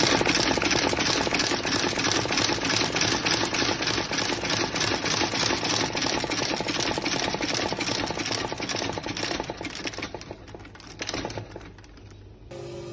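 Shoe sole stitching machine running, a rapid, even clatter of needle strokes as it stitches along the edge of a leather sole. It thins out and stops about eleven seconds in.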